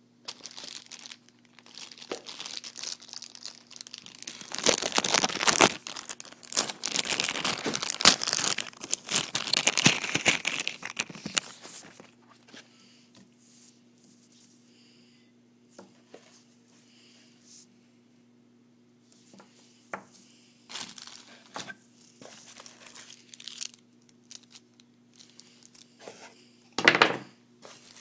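Plastic packaging crinkling and tearing as accessories are unwrapped, loudest and most continuous in the first twelve seconds, then scattered short rustles. A sharp clunk near the end.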